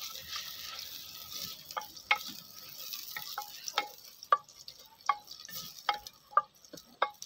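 Sliced onions sizzling in ghee in a clay pot while a wooden spoon stirs them. From about two seconds in, the spoon knocks against the pot's sides about twice a second, each knock ringing briefly.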